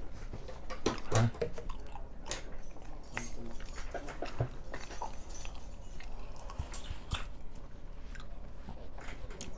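A man chewing a mouthful of egg-coated paratha flatbread, with irregular mouth clicks and smacks.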